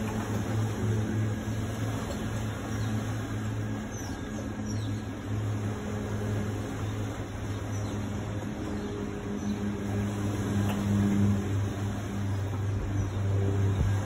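Funicular car in motion: a steady low mechanical hum from its drive, wavering slightly in level, with a couple of low knocks near the end.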